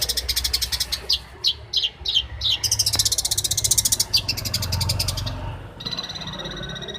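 A long-tailed shrike (cendet) singing a fast, harsh, chattering song of rapid-fire notes. Near the end it switches to a steady, rapidly pulsed trill.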